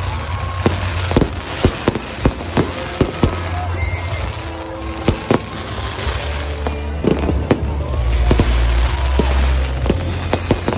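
Aerial fireworks going off: a string of sharp bangs and cracks at irregular intervals over a steady low rumble.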